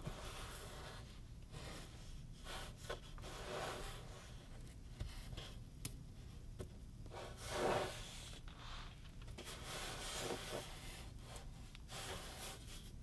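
Kinetic sand being squished, torn apart and kneaded by hand: a soft, crumbly rubbing and tearing rustle in uneven swells, the loudest a little past halfway.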